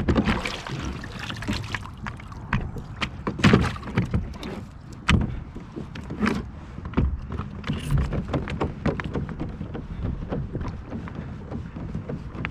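Irregular knocks and clunks on a plastic kayak hull as its pedal drive is switched from reverse to forward, the loudest a few seconds in.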